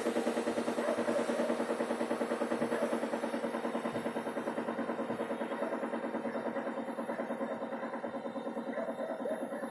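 Engine running with a rapid, even knock pulsing several times a second, slowly getting quieter. The owner calls it a furious knock and does not know its cause.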